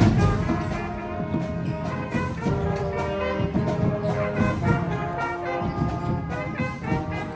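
Music with brass instruments playing held chords over a steady percussion beat.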